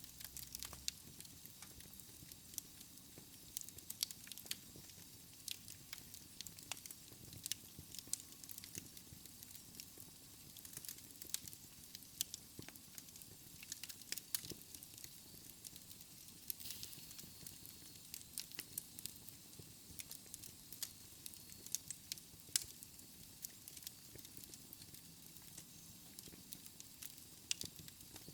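Wood fire in a fireplace crackling: frequent irregular sharp pops and snaps over a soft steady hiss of the flames.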